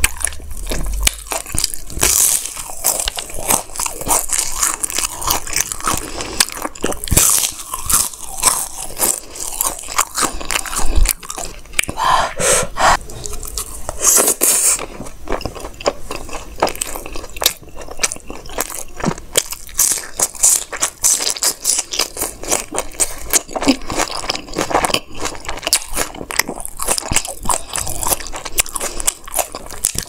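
Close-miked crunching and chewing of crisp fried sago papad: repeated sharp, irregular crunches as pieces are bitten off and chewed.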